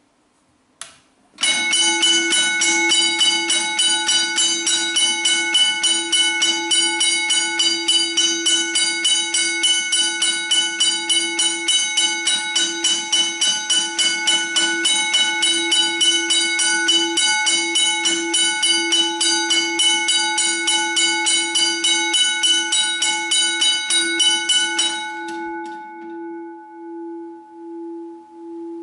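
McKenzie & Holland teardrop level-crossing bell (a later aluminium model) powered up and ringing, its electric striker hitting the gong in rapid, even strokes. About 25 seconds in the striking stops and the gong rings on, fading with a slow wobble.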